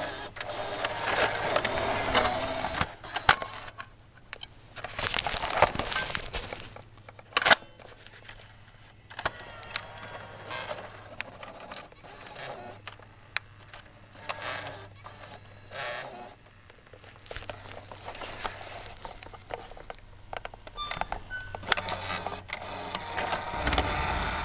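Cassette being ejected and handled in a tape deck: sharp plastic clicks and short clattering rattles of the eject mechanism, repeated many times with gaps between. A steady low hum runs underneath.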